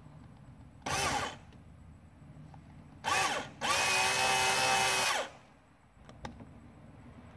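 Cordless drill driving a screw and washer through the rubber bumper protector into the bumper: two short bursts, then a longer run of about a second and a half, each rising in pitch as the motor spins up. A single sharp click follows.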